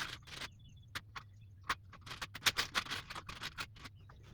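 Small screws and hardware clicking and rattling as they are rummaged through by hand: irregular quick taps, busiest in the second half.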